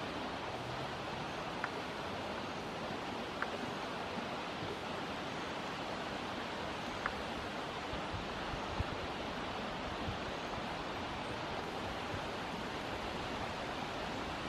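Steady rushing of river water flowing over shallows, with a few faint short ticks.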